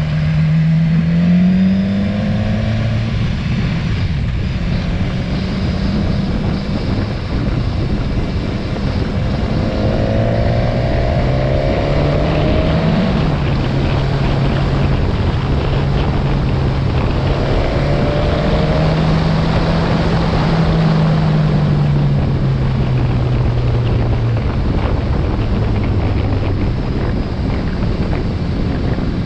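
BMW motorcycle engine running while riding, heard from the bike itself with wind rushing over the microphone. The engine pitch rises in the first two seconds, holds fairly steady, then drops about 22 seconds in.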